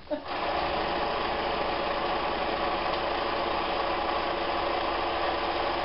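Electric sewing machine running steadily at speed as fabric is fed through it, starting just after the beginning and stopping suddenly near the end.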